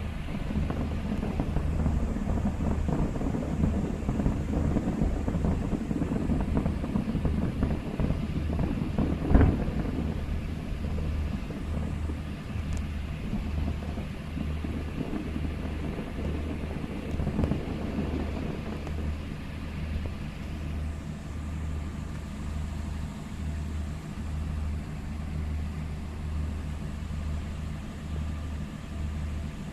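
Distant fireworks bursting: a dense crackle of pops through the first ten seconds, with one sharp loud bang about nine seconds in and a weaker one a little after the middle. A steady low rumble runs under it.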